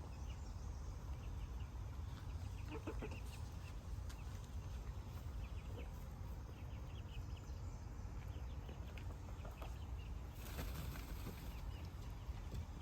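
Hens clucking quietly, a scatter of short, faint calls over a steady low rumble.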